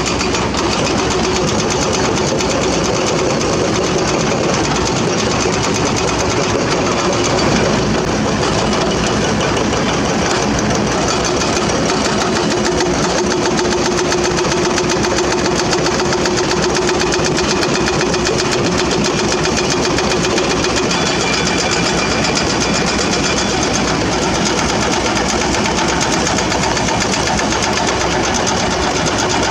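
Heavy diesel engine of a hydraulic excavator running steadily under load, with a steady whine over its rapid pulsing.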